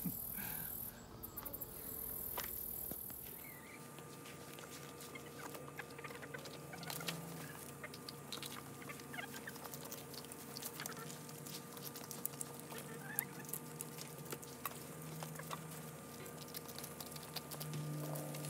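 Backyard chickens pecking at a pile of food on the ground: many small quick taps, with soft clucking.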